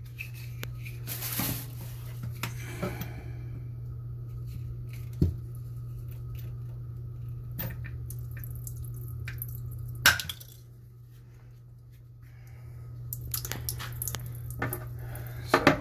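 Residual water dripping and splashing from a PEX supply line being cut off at the old fitting, with scattered clicks from the pipe cutter and a sharp click about ten seconds in. A steady low hum runs underneath.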